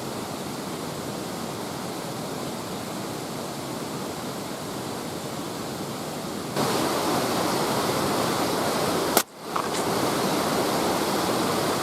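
Mountain river rushing steadily. The noise steps up louder about two-thirds of the way through and drops out for a moment a few seconds later.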